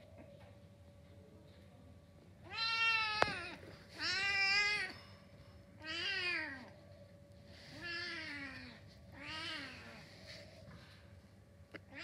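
Young cat meowing five times, about every one and a half seconds, each meow rising and then falling in pitch: it is asking to be let out.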